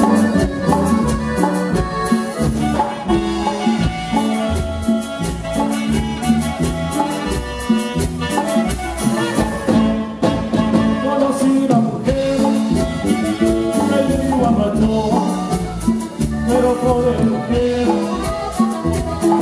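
Norteño band playing live: button accordion and saxophone over guitar and drums, with a steady dance beat.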